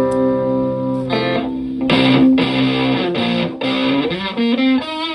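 Fender Stratocaster through a Vox Tone Bender V828 fuzz pedal and a Fender Twin Reverb-style amp. A note is struck and held at the start, several more notes follow from about a second in, and the pitch bends up and down about four seconds in.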